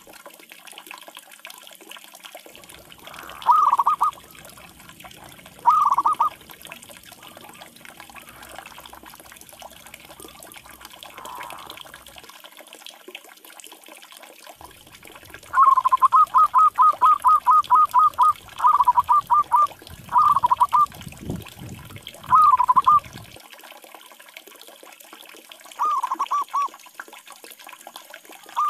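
Zebra dove (perkutut) cooing: short phrases of quick soft repeated notes a few seconds apart, with a longer run of about a dozen rapid notes about halfway through.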